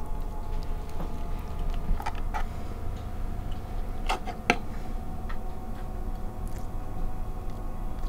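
Scattered light clicks and taps of a metal fork against a plastic cutting board while bones are picked out of a cooked red mullet, over a steady low hum.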